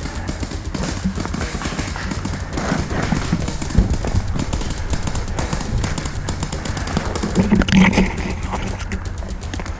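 Paintball markers firing in rapid strings of shots, with a louder flurry near the end.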